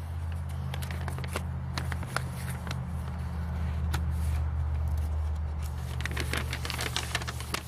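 Paper and packaging rustling and crinkling as it is handled, in scattered short crackles that bunch up near the end, over a steady low mechanical hum.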